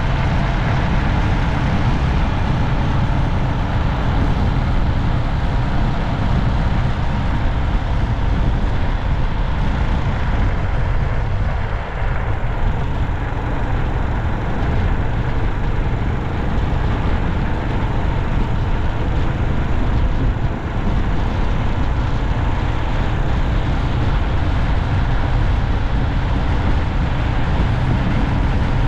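Steady road noise of a vehicle driving along a city street, heaviest in the low end, with brief slight dips about twelve and twenty seconds in.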